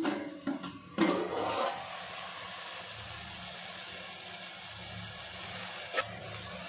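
A metal pot lid lifted off with a clank about a second in, then a steady hissing sizzle of agathi greens cooking in the open pot, with a single click near the end.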